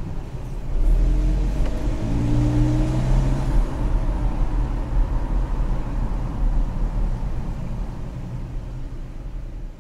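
Car engine and road noise heard from inside the cabin while driving slowly in town, the engine note rising as the car accelerates about a second in, then settling to a steady rumble that fades down near the end.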